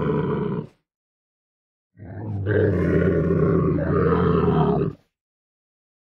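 Camel grunting: a short call cuts off under a second in, then after a pause comes a single long, low, rough grunt lasting about three seconds.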